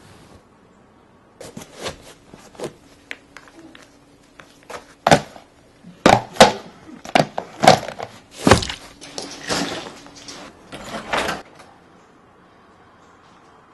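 A rapid, irregular series of sharp clattering impacts, about a dozen over ten seconds, loudest in the middle.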